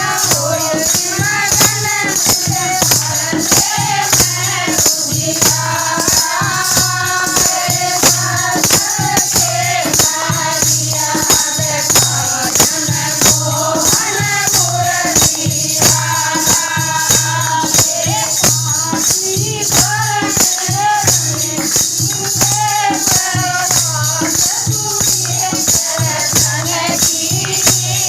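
Hindi devotional song (bhajan) sung by a group of voices over a steady beat of rattling, shaker-like percussion.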